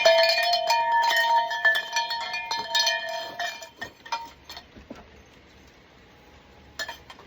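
Metal clinking and ringing, as of tools or metal parts being knocked together and handled, with many sharp clicks over a lingering ring. It stops about three and a half seconds in, leaving only a few faint knocks.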